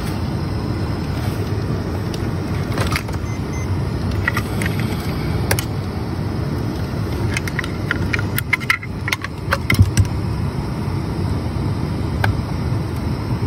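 Scattered clicks and small metallic clinks, bunched together about halfway through, over a steady low rumble.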